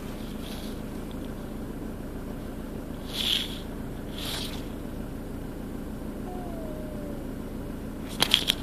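Vehicle engine idling steadily, heard from inside the cab. Two short hisses come about three and four seconds in, and a quick run of clicks near the end.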